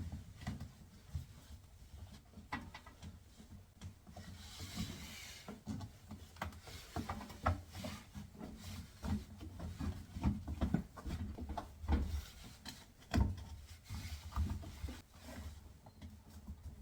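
Hands rubbing and pressing a rubber washer door boot gasket, slick with liquid detergent, into place around the door opening: irregular rubbing and scraping with scattered small knocks.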